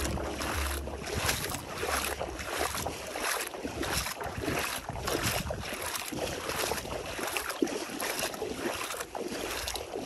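Bare feet wading through shallow seawater, splashing and sloshing in quick, uneven strokes.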